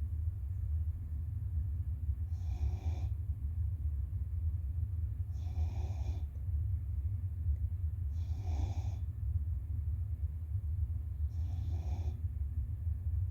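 Puppy snoring in deep sleep, four snores about three seconds apart, each lasting under a second, over a steady low hum.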